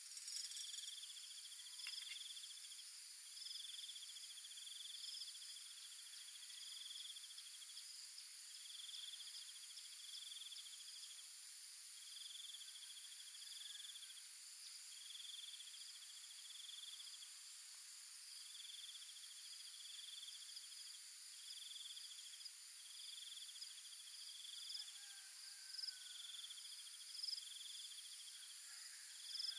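Faint insect chorus: a high trill in pulses about a second long, repeating with short gaps, over a steady high-pitched insect hum.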